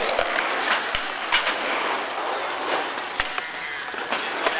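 Skateboard wheels rolling steadily over concrete, with a few sharp clacks scattered through.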